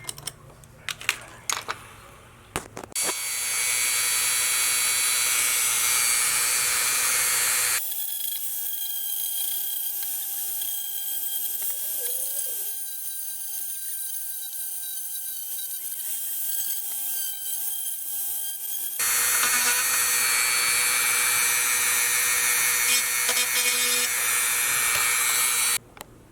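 A few handling clicks, then a Dremel rotary tool running steadily from about three seconds in, grinding down cured JB Weld epoxy on a repaired hinge. It runs quieter through the middle, louder again for the last stretch, and cuts off abruptly just before the end.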